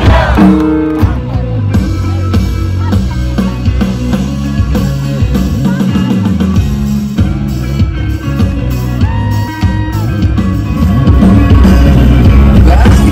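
Live rock band playing loudly, with electric guitar and drums, growing louder about eleven seconds in.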